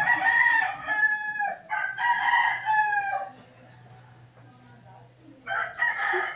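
Rooster crowing: two long crows back to back, then another starting near the end.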